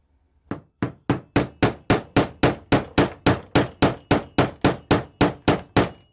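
Small hammer tapping on a steel rifle part in a steady run of about twenty light blows, close to four a second, while a flat spring is fitted into a Mauser 98 ejector box.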